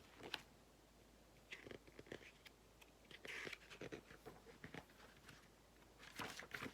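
Faint paper rustling and a few small clicks as the pages of a picture book are handled and turned.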